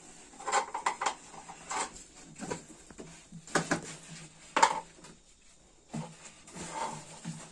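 Large clear plastic jar and its lid being handled and knocked: a string of separate clattering knocks about a second apart, the loudest about four and a half seconds in.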